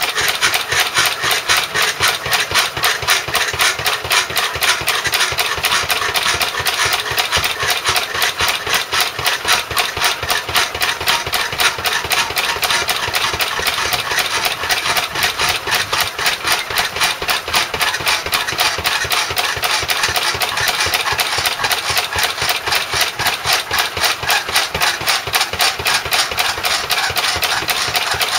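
1929 Lister A single-cylinder stationary engine running on TVO (tractor vaporising oil) at a steady, rapid, even beat. It is driving a belt-driven power hacksaw, which works alongside it.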